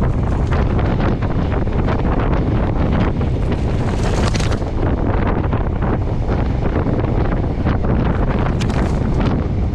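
Wind rushing and buffeting on the microphone at the window of a moving train, over the steady low rumble of the train running on the rails, with a brief rushing swell about four seconds in.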